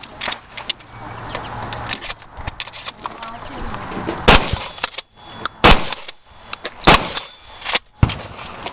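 Shotgun firing three loud shots in the second half, a little over a second apart, with lighter clicks and knocks around them.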